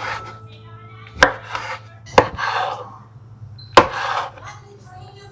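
Knife chopping on a cutting board: three sharp strikes roughly a second apart, each followed by a short rustle.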